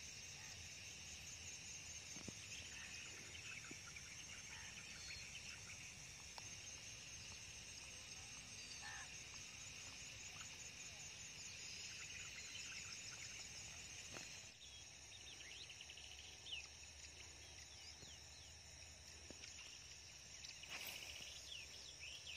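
Faint outdoor ambience: insects chirring steadily at a high pitch, with scattered short bird chirps.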